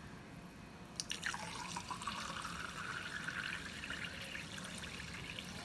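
Carbonated soda water poured in a thin stream into a tall glass tumbler: a short click about a second in, then a steady faint splashing and fizzing as the glass fills.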